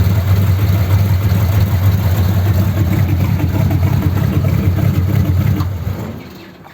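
A 1932 sedan's engine idling with a noisy exhaust that is blowing at a leak, so loud that other noises are hard to hear. The engine stops near the end.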